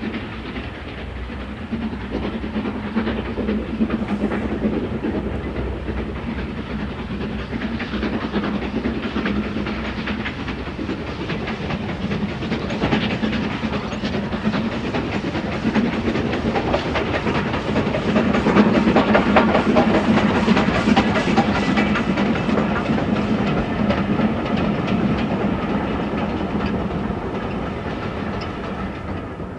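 Steam locomotive hauling a passenger train, its chuffing exhaust beating in a fast, even rhythm with the clatter of the coaches' wheels over the rail joints. The sound is loudest a little past the middle, then fades away near the end as the train passes out of earshot.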